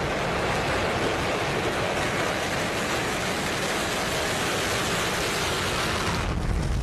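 Falcon 9 rocket's nine first-stage Merlin engines running at full thrust just after liftoff: a dense, steady rushing noise. About six seconds in, the hiss drops away and a deep low rumble takes over.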